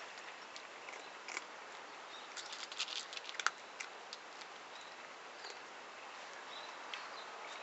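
Cats crunching dry kibble: irregular sharp crunches and clicks that come thick and fast in the middle, then thin out.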